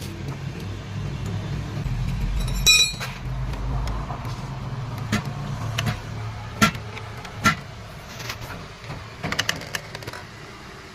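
Motorcycle engine running low in the first few seconds, with a ringing metallic clink about three seconds in, then scattered sharp metal clicks and knocks and a quick run of clinks near the end.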